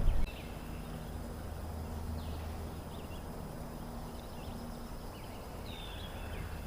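Quiet open-air lake ambience: a few faint, short bird calls over a steady low hum.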